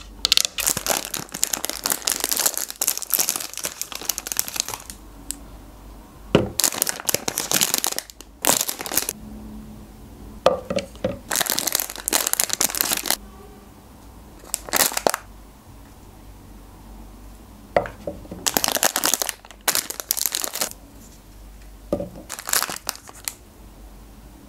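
Long fingernails tapping and scratching on a wooden cutting board, then Magnum ice-cream bar wrappers crinkled and torn open in repeated short bursts with pauses between.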